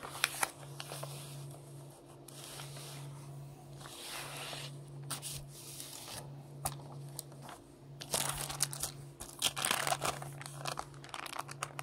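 A paper envelope being opened and handled, with paper rustling and crinkling as photo prints are slid out. The rustling is busiest at the start and again over the last few seconds, over a steady low hum.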